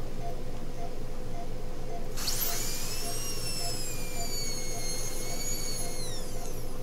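High-speed dental drill spinning up about two seconds in, whining at high pitch with a slightly wavering tone, then winding down near the end as it drills remaining decay out of a dog's upper molar.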